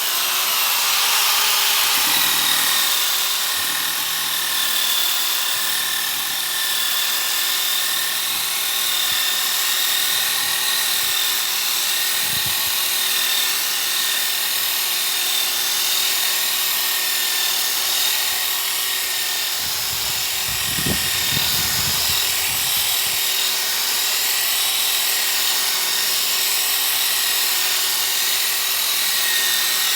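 Power tool spinning a 125 mm, 220-grit sanding disc on a backing pad against a wooden tabletop: a steady motor whine over the rasp of abrasive on wood, starting suddenly. Heavier scuffing comes briefly about twelve seconds in and again around twenty to twenty-three seconds.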